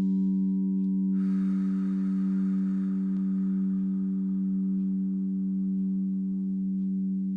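Crystal singing bowl sounding one steady low hum with a few overtones. About a second in, a brighter, higher ring starts suddenly and slowly fades over the low hum.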